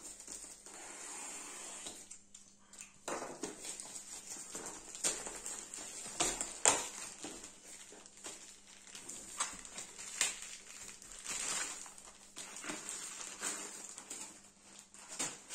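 Rustling and scattered sharp clicks and knocks of a cardboard parcel being unwrapped and handled, the sharpest knock about halfway through.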